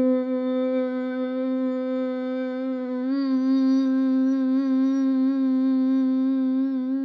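A woman's long, sustained hum on one pitch, made as a humming breath exercise (pranayama). It wavers slightly in pitch from about three seconds in.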